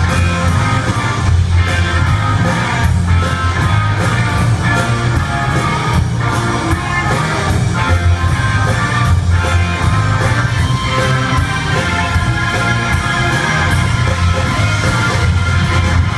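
Live rock band playing loudly through an arena PA: electric guitars, keyboards and drums over a heavy bass line with a steady beat, ringing in a large hall.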